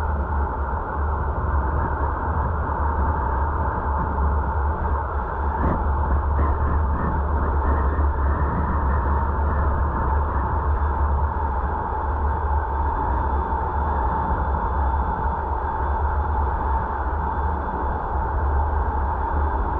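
Steady road and wind noise of a moving car heard through a dashcam, with a single faint click about six seconds in.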